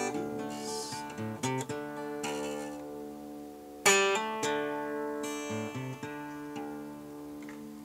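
Acoustic guitar played solo, without singing: struck chords left to ring, with a few picked bass notes between them and the loudest strum about four seconds in.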